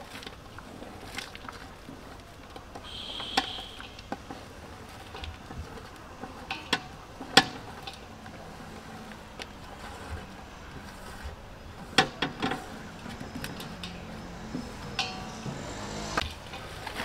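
Sliced onions being swept by hand off a metal plate into a large metal pot: a soft rustle and patter of falling slices, with several sharp knocks of the plate against the pot rim, the loudest about seven seconds in.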